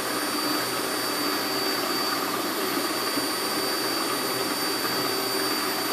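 Electric stand mixer running steadily, beating cake batter.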